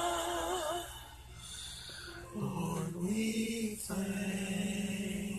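A sung note with vibrato fades out in the first second; then a low voice hums long, held notes, sliding up and back once, with short breaks between them.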